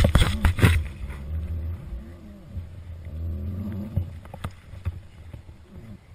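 Helmet-camera audio of a dirt-bike crash: a few hard thumps and knocks over a low rumble as the rider tumbles down the rocks in the first second. After that it settles into the rider's low, drawn-out groaning breaths, with a couple of small clicks.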